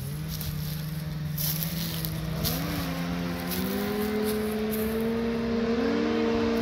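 Home-built cross kart's 600 snowmobile engine running under power as the kart approaches. The engine note climbs about two and a half seconds in, then holds steady while growing louder. Wind buffets the microphone underneath.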